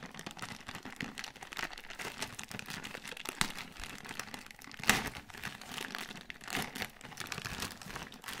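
Thin clear plastic bag crinkling as hands handle it and tear it open at the side, with one sharper, louder crackle about halfway through.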